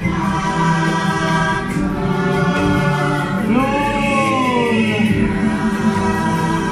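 Choir singing over music, the voices holding long notes, with one sweeping phrase that rises and falls about halfway through.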